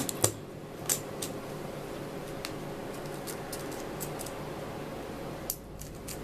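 A steady low hum with a few light clicks and taps. The loudest clicks come about a quarter second in and about a second in.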